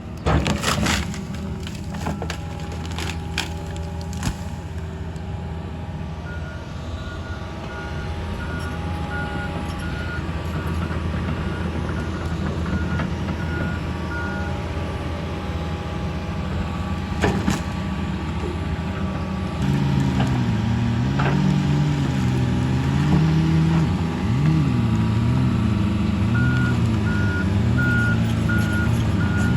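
Heavy diesel equipment running, with a backup alarm beeping for several seconds twice, once in the first half and again near the end. From about two-thirds of the way through, the engine note rises and falls as the machine works. A few sharp knocks sound in the first few seconds.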